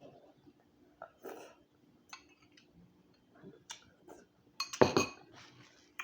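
Scattered clicks and clinks of tableware, with a louder clatter about five seconds in.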